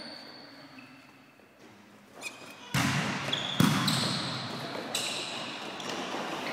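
Volleyball rally echoing in a sports hall: after a lull, the ball is struck sharply about three times, at roughly three, three and a half and five seconds in, each hit ringing on in the hall's reverberation, with a few faint high squeaks of shoes on the court floor.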